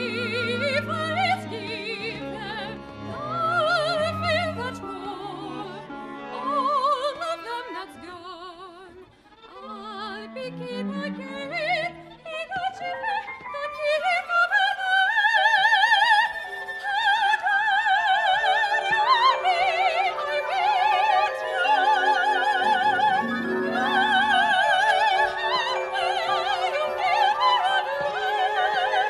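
Soprano singing with wide vibrato over a chamber ensemble of strings, harp and winds playing new classical music. After a brief quiet moment the voice and ensemble swell, and the long held sung notes are loudest in the second half.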